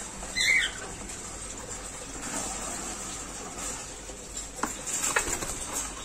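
White-breasted waterhen giving one short squeaky call about half a second in, then a few light clicks and knocks of the wire cage and plastic water basin near the end.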